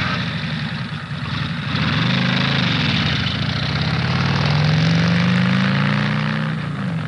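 1992 Ford F-150 pickup's engine running, revved up about two seconds in and held at higher revs for several seconds, then dropping back toward idle near the end.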